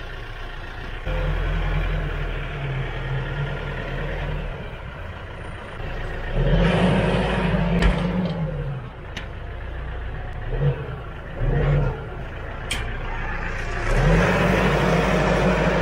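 Tractor diesel engine running under load, revving up in surges as the front loader pushes and lifts a bucketful of soil and litter, with a few sharp knocks along the way.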